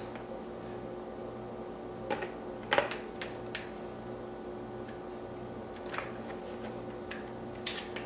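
Light plastic clicks and taps, a few scattered over several seconds, as clear plastic accessory pieces are handled and fitted together, over a steady low electrical hum.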